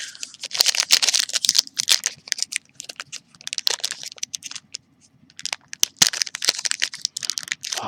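Plastic trading-card pack wrapper crinkling and crackling in clusters as it is forced open, with one sharp snap about six seconds in; the wrapper is stubborn and hard to tear.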